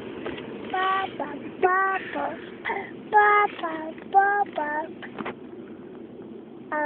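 A young child singing in a string of short, high-pitched syllables, pausing briefly about three quarters of the way through before one more note at the end.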